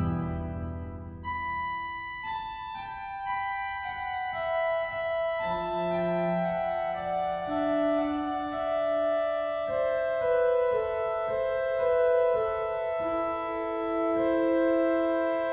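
Virtual Eisenbarth pipe organ playing alone on a soft registration. A loud chord dies away at the start, then slow, sustained chords follow one another.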